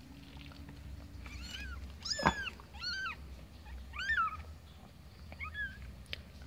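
Newborn kitten mewing while being handled: about six short, high-pitched cries, each rising and falling in pitch.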